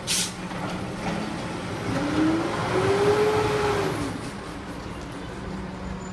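Automated side-loader garbage truck with its engine running steadily, a short sharp hiss of air right at the start, then the engine revving up and falling back over about two seconds, from about two seconds in.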